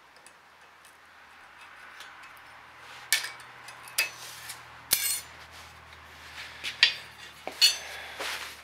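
A steel scribe scratching lightly along a steel rule, followed by steel tools being set down and handled on a steel workbench: several sharp metal clinks and clatters, the loudest near the end.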